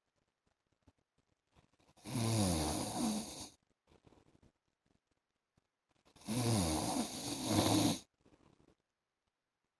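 A man snoring in his sleep: two long, rough snores, the first about two seconds in and the second just past the middle, each lasting one and a half to two seconds, with quiet breathing pauses between them.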